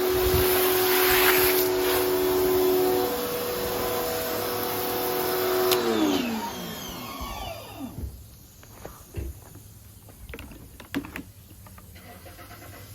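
Bauer electric pressure washer running with a steady whine and spray hiss, then its motor shuts off about six seconds in and winds down in pitch. A few clicks and knocks of handling follow.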